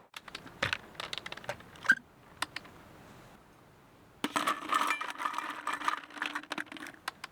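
Light clicks and clinks of small hard objects being handled, in a scattered run at first and a denser run from about four seconds in.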